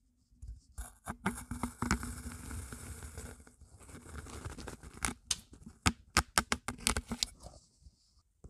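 Kinetic sand crunching as a knife blade cuts through a bowl packed with it: a gritty rasp for the first few seconds, then a quick run of sharp crackles.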